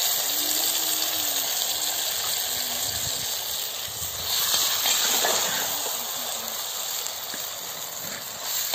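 Quail pieces sizzling as they fry in hot groundnut oil in a clay pot, stirred with a steel ladle: a steady hiss that surges louder about five seconds in.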